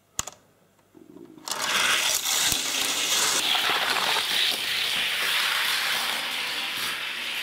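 A sharp click as the starting gate is released, then a steady rushing rattle of die-cast toy cars rolling down a plastic race track, easing off near the end.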